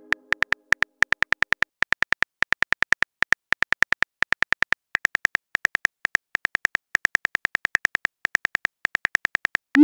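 Phone keyboard typing clicks: a rapid run of short, sharp taps in uneven bunches as a text message is typed out. A short rising swoosh comes at the very end.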